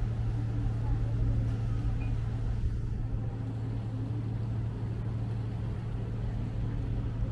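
A passenger boat's engine running steadily under way: a constant low hum with a rumbling haze beneath it.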